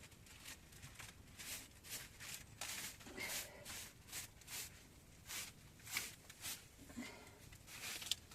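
A run of short rustling, crunching noises, irregular, about two or three a second, with a sharp click near the end.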